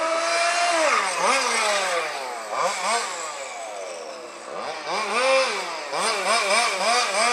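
High-revving small engine of a radio-controlled racing car, its pitch swooping up and down as the throttle is opened and shut through the corners. About a second in the revs fall away sharply; near the end they waver up and down about twice a second.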